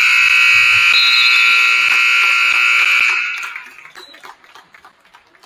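Gymnasium scoreboard horn sounding one loud, steady blast of about three and a half seconds, then dying away. Faint knocks follow.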